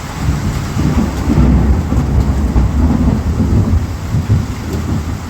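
Steady rain with a low, rolling rumble of thunder beneath it.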